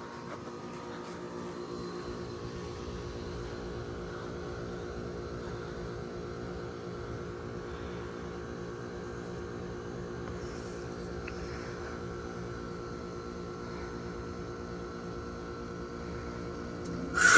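Outdoor unit of a 2015 Carrier Comfort 5-ton heat pump running in defrost mode: a steady compressor hum with a stack of even tones. A sudden loud burst of noise comes right at the end.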